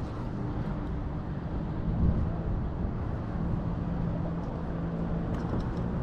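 Bow-mounted electric trolling motor humming steadily under wind and water noise, with a low thump about two seconds in.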